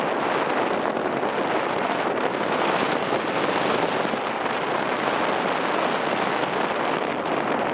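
Strong wind buffeting the microphone: a steady, loud rushing noise.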